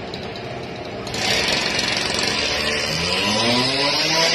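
A power cutting tool running: a harsh cutting noise starts about a second in, and about three seconds in a motor's pitch rises as it speeds up, then holds steady.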